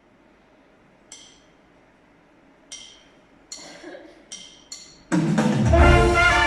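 A few sparse, ringing percussion strikes spaced irregularly, then about five seconds in a band with brass comes in loudly to open the tune.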